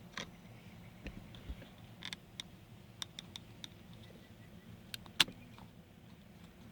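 Scattered small metallic clicks and taps from tools working on a seat belt buckle whose release button is stuck, its return spring jammed; one louder sharp tap about five seconds in.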